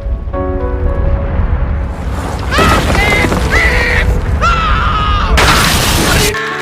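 Cartoon sound effects over a continuous low rumble: a few short music notes at the start, then several short rising-and-falling cries, and a loud crashing burst about five and a half seconds in, after which the rumble stops.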